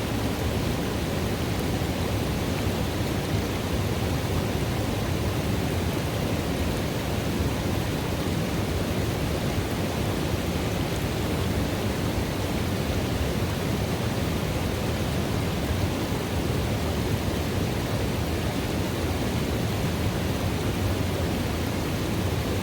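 River water running into a pool: a steady, unbroken rush with a deep low rumble beneath it.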